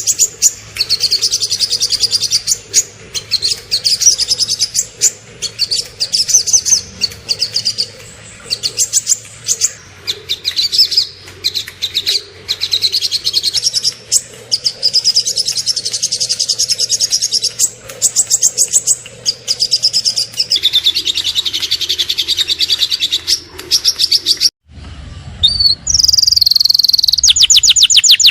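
Small songbirds singing rapid, high-pitched chirps and trills in dense, fast bursts with short pauses. Near the end there is a brief gap, then a different bird's fast, evenly repeated trill.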